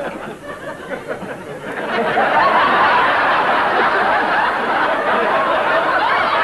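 Studio audience laughing, quieter at first, then swelling into loud, sustained laughter about two seconds in.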